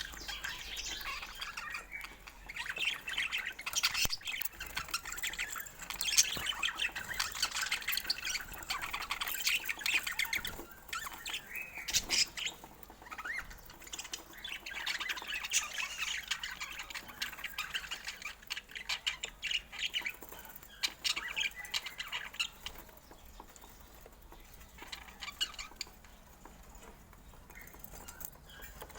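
Budgerigars chattering and squawking: many short, overlapping chirps and squawks, busy for most of the time and thinning out near the end.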